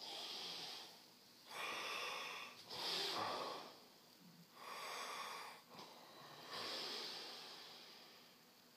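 A sleeping person snoring: about five noisy breaths in and out, each about a second long with short pauses between, the last one trailing off near the end.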